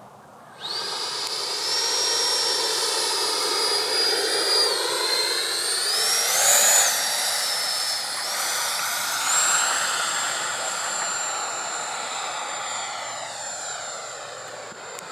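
80mm electric ducted fan of an FMS F-16 RC jet whining in flight, starting abruptly about half a second in. Its pitch shifts and climbs briefly around the middle, then holds one steady high tone and fades near the end.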